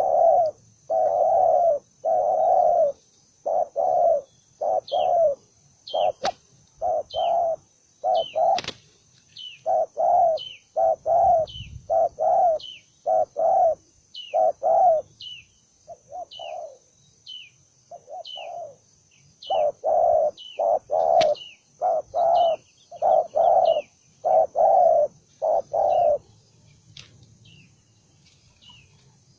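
Spotted dove cooing over and over in short groups of low notes, with brief gaps. A small bird gives short, high, falling chirps about once a second alongside, and a faint steady high tone runs underneath. The cooing stops about three seconds before the end.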